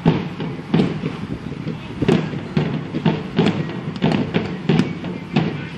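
Field drum beating a steady march rhythm, about one stroke every two-thirds of a second, as troops march onto the field.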